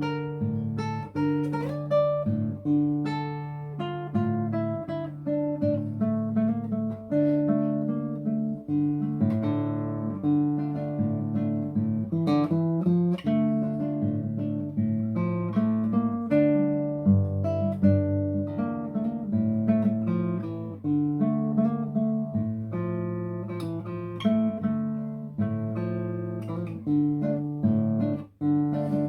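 Acoustic guitar playing a plucked melody over a moving bass line with occasional chords, without singing.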